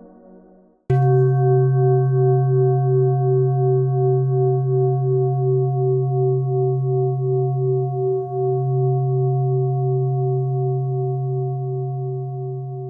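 Ambient music fades out, then about a second in a singing bowl is struck once. It rings on loudly with a steady pulsing wobble, slowly fading.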